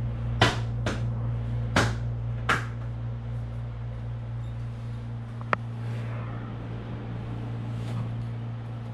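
Four sharp knocks in the first two and a half seconds, then a single click about five and a half seconds in, over a steady low hum.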